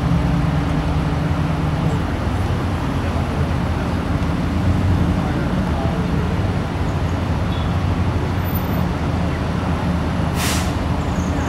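Fire engine's diesel engine idling steadily, with a short air-brake hiss near the end.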